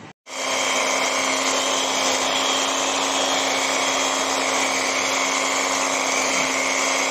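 Electric hand mixer running steadily at one speed, its twin beaters whipping cream in a stainless steel bowl. The motor's even whir, with a constant low hum, cuts in abruptly just after the start.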